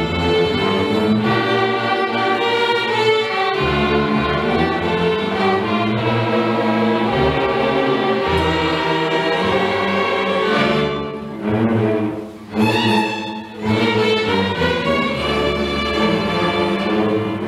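Student string orchestra of violins and cellos playing sustained, full chords. The sound thins out twice for a moment about twelve and thirteen and a half seconds in before the whole ensemble returns.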